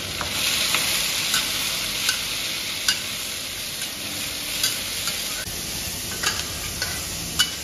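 Chopped long beans and green chillies sizzling as they are stir-fried in a wok, with a metal spatula scraping and tapping against the pan about once a second.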